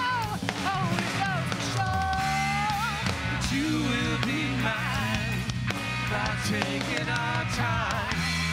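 Live classic rock band playing: electric guitars, bass guitar and drums under a lead vocal, loud and steady.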